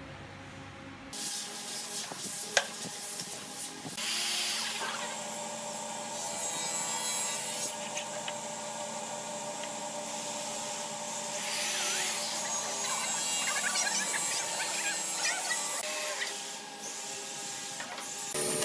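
Wood scraping and rubbing against wood, continuous from about a second in, with one sharp knock early on.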